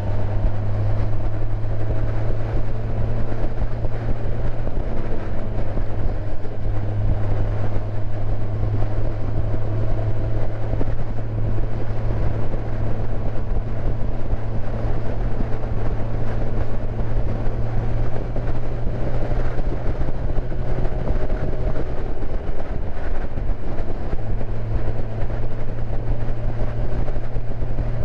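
Motorcycle engine running steadily at cruising speed, with wind and road noise; the engine note drops briefly about two-thirds of the way through, then picks up again.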